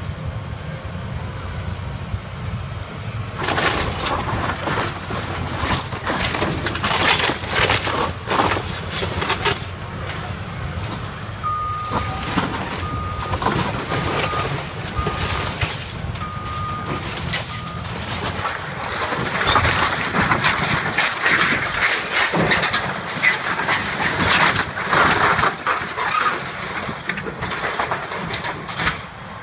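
Hydraulic excavator's engine running while its arm rips and crushes the corrugated metal of a Quonset hut, with repeated crashing, crumpling and scraping of sheet metal and debris. A backup alarm beeps about half a dozen times in the middle.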